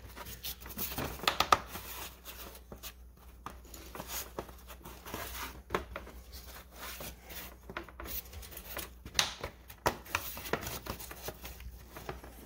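Plastic radiator fan housing being pushed and worked into its mounting slots by hand: irregular scraping, rubbing and clicking of plastic against plastic and metal, with a couple of sharper knocks about a second and a half in.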